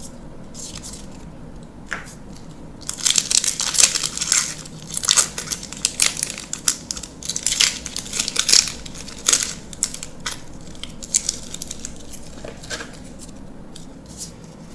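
A foil-wrapped Magic: The Gathering booster pack being torn open and its wrapper crinkled, a dense crackling from about three seconds in that lasts some seven seconds. Softer clicks of playing cards being handled come before and after it.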